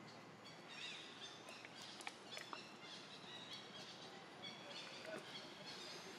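Faint outdoor background with short, high chirps scattered throughout, and a few soft clicks about two seconds in.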